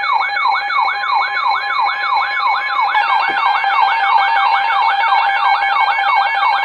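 Electronic siren sounding a fast yelp: a rising wail that drops back and repeats about three times a second, over steady alarm tones. About three seconds in, a second warbling alarm tone joins it.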